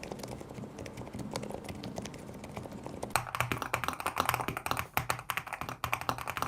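Typing sound test on a LOFREE Flow 2 low-profile mechanical keyboard: a fast, continuous run of keystrokes. About three seconds in, the key clatter becomes louder and brighter.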